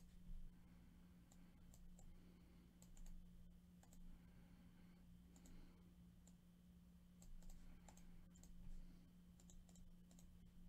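Near silence with faint, irregular clicks from a computer mouse and keyboard over a low steady hum.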